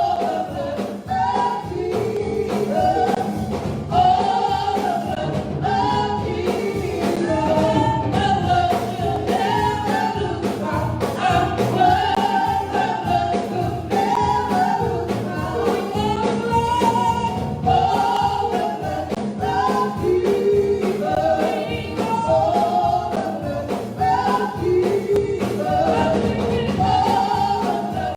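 Gospel music: a choir or group of voices singing over instrumental backing, at an even, steady level.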